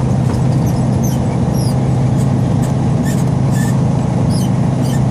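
Tractor-trailer's diesel engine droning steadily inside the cab while driving, with scattered short high-pitched squeaks over it.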